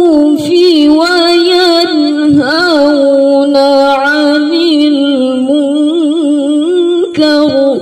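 A woman's voice reciting the Quran in the melodic tilawah style, drawing out one long ornamented phrase with a wavering pitch, which breaks off just before the end.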